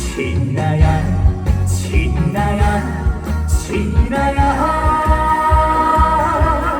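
Live band music for a Korean trot song, playing a steady beat between sung lines. About four and a half seconds in, a long held note with a wavering vibrato comes in over the beat.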